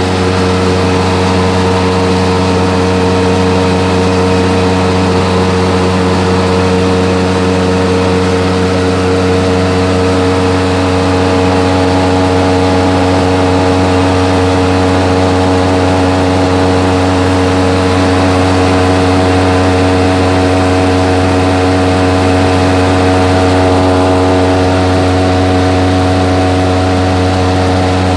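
Electric fan running steadily: a constant motor hum made of several steady tones under an even whir of moving air.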